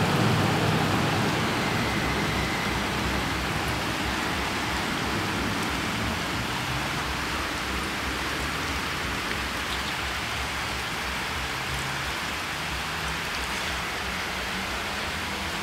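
Heavy rain pouring down onto a flooded street, a steady dense hiss of rain on water. It is louder and deeper for the first second or two, then settles.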